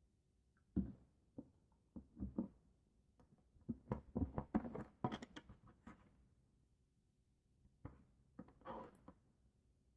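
Slime being squeezed and worked by hand, giving scattered soft clicks and squelches, with a dense run of them about four to six seconds in and another short cluster near nine seconds.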